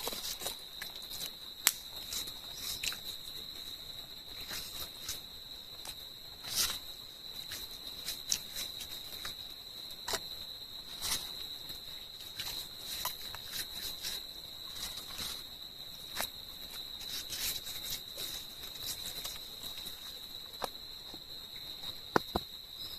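A steady, high-pitched chorus of insects such as crickets, with scattered sharp clicks and rustles over it.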